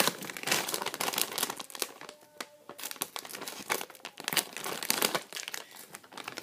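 Plastic snack bag crinkling in irregular crackles as hands work at tearing it open.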